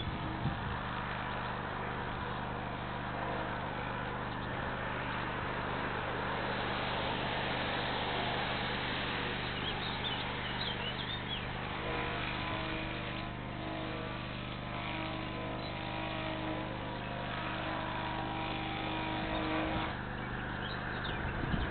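Steady outdoor noise with a constant low hum, and a motor vehicle's engine heard from about 12 to 20 seconds in. A few small bird chirps come about 10 seconds in.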